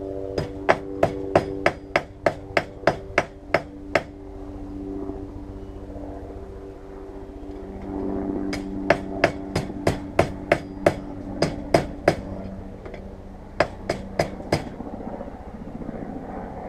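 Hand hammer striking hot file steel over a round drift pin, bending the end into a fire-striker handle. The blows come in three quick runs of about three a second, with a steady hum underneath.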